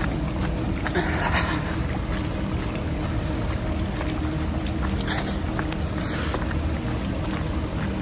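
A vehicle driving, its engine running at a steady low hum with road noise and scattered light ticks.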